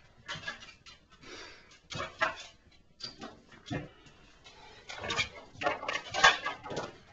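A dog nosing and pawing at a chess-style treat puzzle board, its plastic cones and sliding blocks knocking and clattering in irregular bursts, busiest and loudest in the last couple of seconds.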